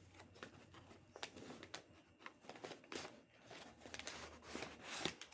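Packing paper being handled and pulled aside, faint irregular rustling and crinkling.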